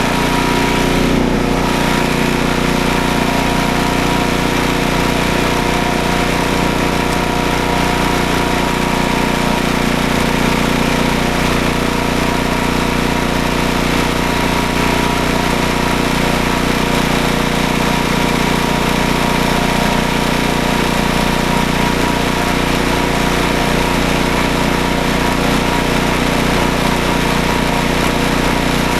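Snowblower's gasoline engine running steadily at a constant speed.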